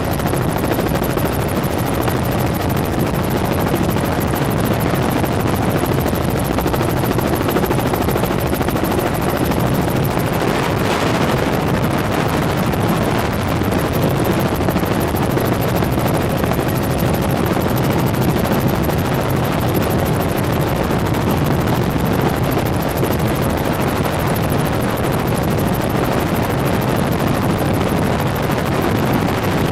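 Helicopter in flight, its rotor and engine making a steady, loud drone with a faint steady hum running through it.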